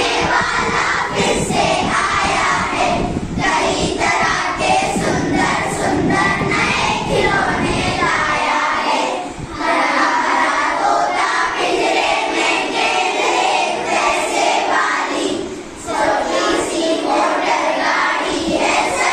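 A class of schoolchildren singing a Hindi poem together in unison, with two short breaks between lines.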